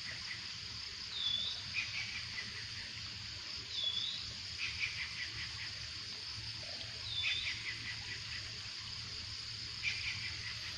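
Outdoor insect chorus: a steady high drone, with a bird's short chirping call repeated every two to three seconds.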